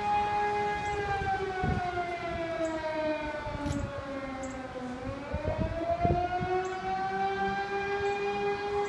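Outdoor tornado warning siren wailing: a steady tone that starts sliding down in pitch about a second in, bottoms out around the middle, then climbs back to its steady pitch.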